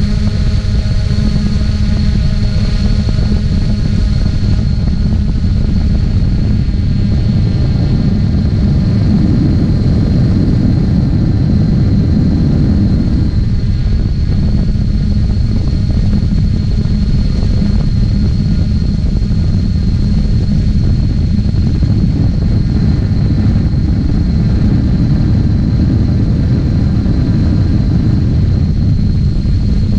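3DR Solo quadcopter's motors and propellers running steadily in flight, picked up by its on-board camera: a steady high whine with several steady tones over a loud, low rumble.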